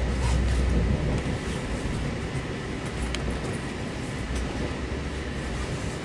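Lastochka (Siemens Desiro RUS) electric train running at high speed, about 155 km/h, heard from inside the carriage: a steady low rumble of wheels on rail and running noise. It is a little louder in the first second, with a single sharp click about three seconds in.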